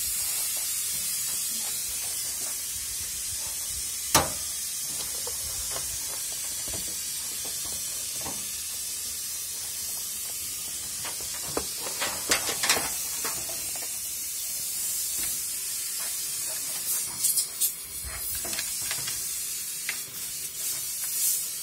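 Washing machine parts being handled during disassembly: a sharp plastic click about four seconds in, then scattered clicks and knocks further on, over a steady high hiss.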